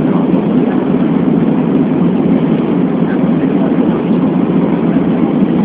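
Steady, loud cabin noise inside an Airbus A340-600 airliner in flight: an even rumble of engines and airflow, with no change in pitch.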